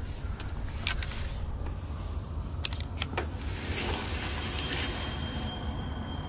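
Handling noise from a handheld camera on the move: a steady low rumble with several sharp clicks and knocks, and a faint steady high tone from about four and a half seconds in.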